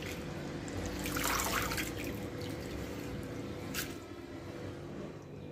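Water splashing and dripping as hands swish, lift and squeeze grated potato shreds in a bowl of water to rinse out the starch, loudest about a second in, with one sharp tap just before four seconds.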